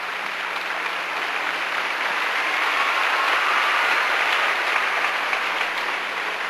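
Arena crowd applauding after a gymnastics floor routine, swelling about halfway through and easing toward the end.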